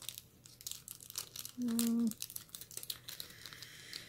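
Small clear plastic zip-top bags crinkling and crackling in the hands as they are handled and opened. About halfway through, a short steady hummed 'mm' from a voice.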